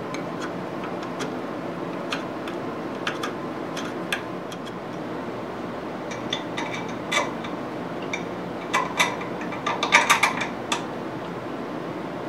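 Small metal clicks and clinks from a hex key and a steel DRO mounting bracket being worked by hand, scattered at first and then a quick cluster of louder clinks about ten seconds in, over a steady background hum.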